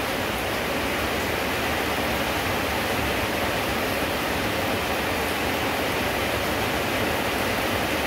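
Steady heavy rain falling, an even hiss with no breaks.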